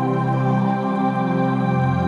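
Background music: slow ambient new-age music with sustained, organ-like chords and a bass note that changes near the end.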